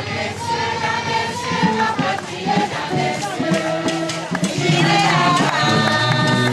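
A crowd singing together in chorus, many voices at once.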